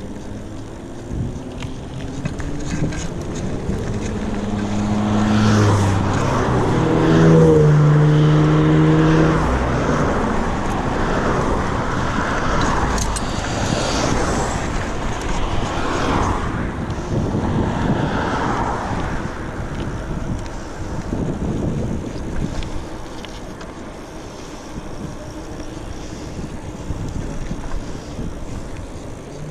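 Passing road traffic: a motor vehicle's engine note rises in steps over several seconds and is loudest about eight seconds in. After that comes a steady rush of tyre and wind noise.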